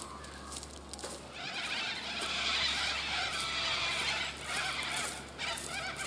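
A loud chorus of wild birds calling together, swelling about a second and a half in and dying away after a few seconds, with footsteps crunching on dry leaf litter.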